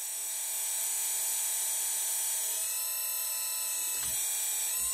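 Electric-motor-driven hydraulic pump of an RC scale excavator running with a steady high whine, its tone thickening a little about halfway through. It runs free of cavitation: the air has been bled out and the oil flows clean without bubbles.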